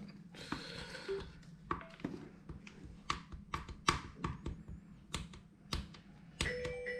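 Irregular light clicks and taps, about a dozen, with a brief scrape near the start, as a ruler works and smooths setting putty around a helmet camera mount. Background music comes in near the end.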